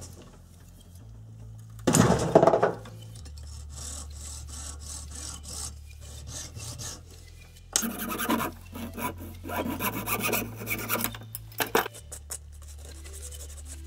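A flat hand file rasping across a short piece of plastic pipe in quick back-and-forth strokes, about four a second, with a louder run of strokes in the second half.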